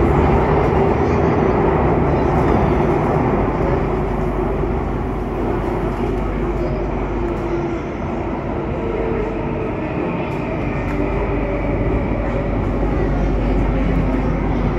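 Running noise of an SMRT Circle Line C830 metro train heard from inside the carriage as it travels through a tunnel: a steady rumble and rush, with a faint whine coming in about two-thirds of the way through.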